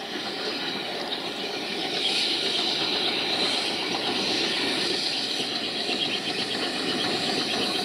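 Steam locomotive hauling a train of coaches towards the listener; the sound grows louder about two seconds in and then holds steady.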